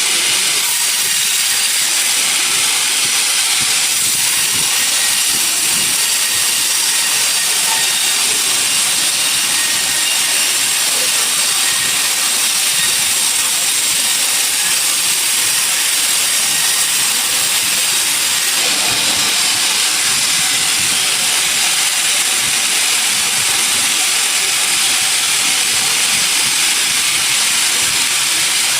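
Sawmill saw cutting through a log, a steady loud hiss with no let-up.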